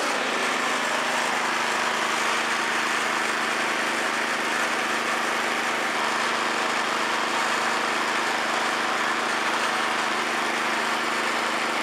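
Troy-Bilt Storm 2620 snowblower engine running steadily at full throttle.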